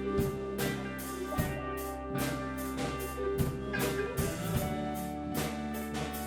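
Ska-rock band playing an instrumental passage: drum kit keeping a steady beat of about two to three hits a second under held chords.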